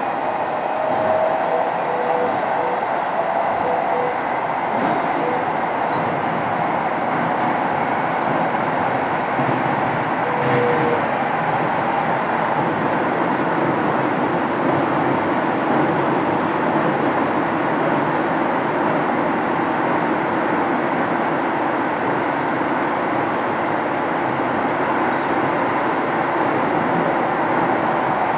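Keio 7000 series electric train running at a steady speed, heard from inside motor car DeHa 7271: a continuous rumble of wheels on rail and traction equipment.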